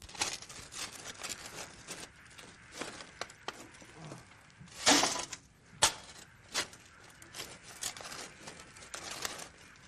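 Irregular clattering knocks and crashes, as of hard objects being dropped and knocked together. The loudest crash comes about five seconds in, with another sharp knock just before six seconds.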